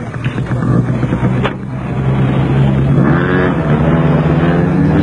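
Motor scooter's small engine running steadily, its pitch rising and falling from about three seconds in.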